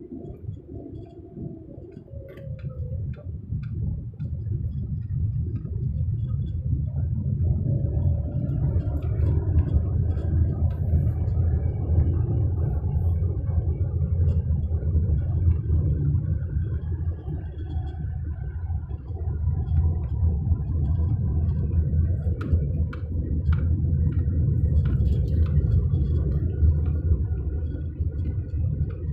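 Manual car driving slowly over rough ground: the engine runs under a steady low rumble of the drive, and light clicks and knocks are scattered through it. The engine note dips in the first few seconds, then climbs about eight seconds in.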